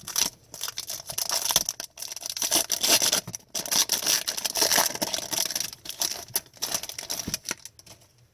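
Foil trading-card pack wrapper crinkling and tearing while hockey cards are handled, a dense run of crackles and rustles that fades near the end.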